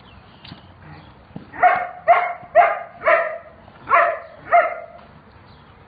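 A dog barking six times in a quick, even run, about two barks a second, starting a second and a half in.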